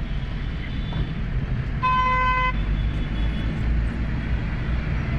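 Road traffic rumbling steadily, heard from a moving vehicle, with a vehicle horn honking once, briefly, about two seconds in.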